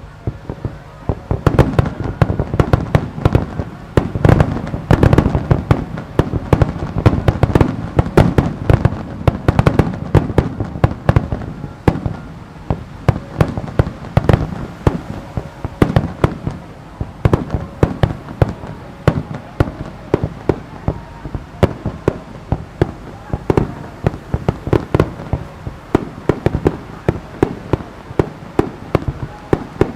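Japanese starmine fireworks barrage: shells fired and bursting in rapid succession, a dense volley of overlapping booms and cracks for the first dozen seconds, then a steadier run of separate bangs several a second.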